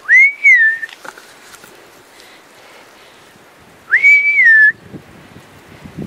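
A person whistling two short, loud notes about four seconds apart. Each note swoops up to a high pitch, holds briefly, then drops a little before stopping.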